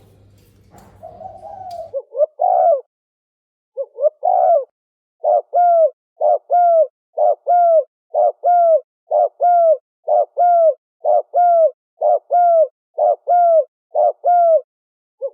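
Spotted dove cooing. The first two seconds are fainter, over a low hum; then comes a fast, even run of short, down-curving coo notes, about two a second, of the rapid 'thổ sấm' calling style used as a lure call.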